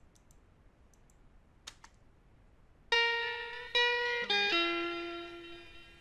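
Plug-in guitar (a sampled virtual instrument played from MIDI) picking a short phrase of single notes, the last one left ringing and fading. Each note sits at a dead-steady pitch with no bend or vibrato, which is what makes MIDI guitar sound stiff and unnatural. A single click comes before it, after a couple of seconds of room tone.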